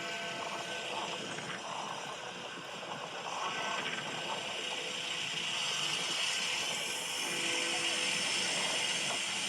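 Faint clock tower bell tones, held and fading, heard near the start and again about seven seconds in, under a louder steady background noise.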